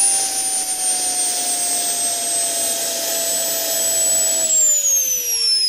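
JetJoe 1400 model jet turbine running with a high whine and hiss, its pitch sliding slowly down, then dropping faster about four and a half seconds in as the engine spools down with the throttle at low.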